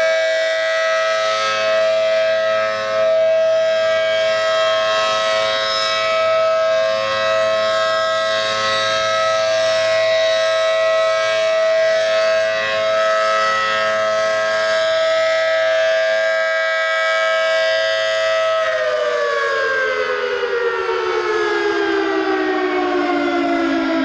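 ACA Allertor 125 rotating tornado siren with a 10/12-port rotor sounding its steady two-tone chord. About 18 seconds in, the pitch starts falling steadily as the siren winds down.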